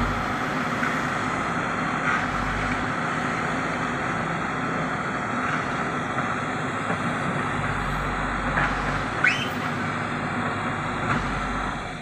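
Terex TLB 740S backhoe loader's diesel engine running under working load with a steady high whine, its note deepening in swells several times as the backhoe swings and digs. A few light knocks and a short rising squeak come about three quarters of the way through.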